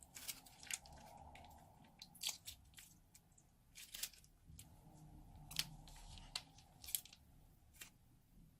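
Slime being piped and handled, giving irregular sharp crackles and sticky pops, about a dozen over several seconds.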